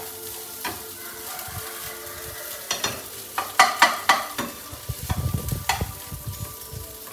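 Nasi goreng (fried rice) being stirred and tossed in a wok with a metal spatula over a gas flame, with sizzling. A cluster of loud scrapes and knocks of the spatula on the pan comes a few seconds in, followed by softer thuds, over a steady hum.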